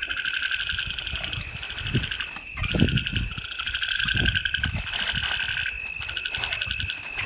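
A chorus of frogs calling, many rapid pulsed trills overlapping without pause. A few low thumps cut in, the loudest about three seconds in.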